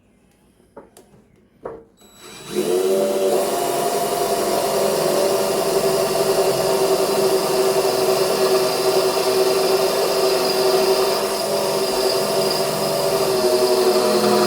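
Electric drill starting up about two seconds in, after a few light clicks, and then running steadily as it bores a hole through the steel of a winch bumper.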